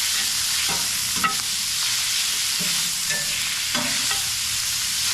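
Chorizo sausage and onions sizzling in a hot cast-iron skillet, with a metal spatula scraping and stirring through them a handful of times.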